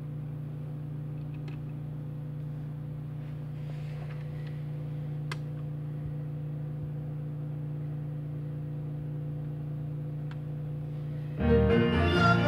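A steady low hum with a few faint clicks while the Dual 1257 turntable spins and its tonearm is handled. About eleven seconds in, the record starts playing through the speakers: music with guitar, much louder.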